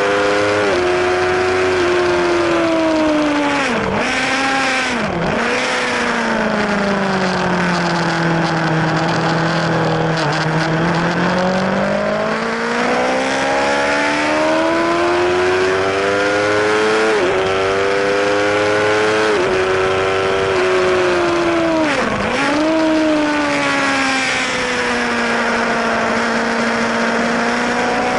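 Yamaha YZF-R1 inline-four engine running on track, heard from on the bike: revs rise and fall through the corners, with a few brief sharp dips in pitch.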